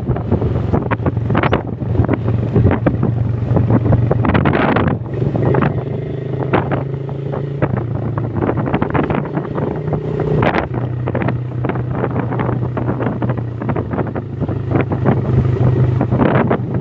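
Motorcycle engine running under way with heavy wind buffeting on the microphone; the engine note shifts in pitch about five seconds in and again about ten seconds in.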